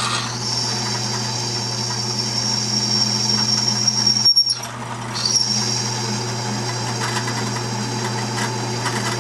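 Drill press running with a sharp bit cutting a 3/8-inch hole through quarter-inch steel flat bar: a steady motor hum under a high cutting whine. The whine breaks off about four seconds in and comes back about a second later.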